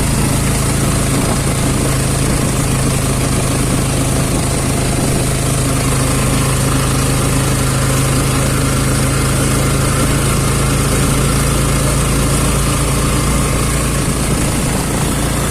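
A vehicle's engine running steadily while travelling, with a constant low hum over a wide hiss of road and air noise.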